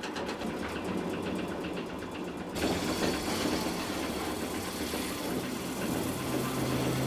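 Belt-driven rock crusher running with a fast, even mechanical clatter; about two and a half seconds in the sound turns louder and rougher as it grinds rock.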